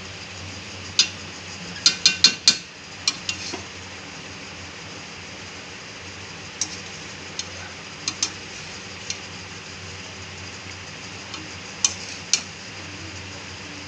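A spatula stirring vermicelli in a stainless-steel kadai, clinking against the pan. A quick run of clinks comes about two seconds in, then scattered single clinks follow, over a steady hiss.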